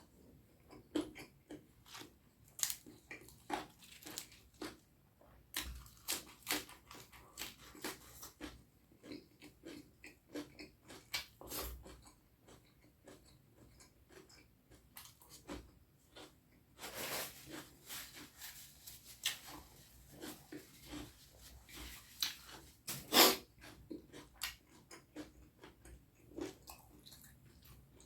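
Close-miked chewing of curry and rice: irregular smacking and clicking mouth sounds, with one louder smack late on.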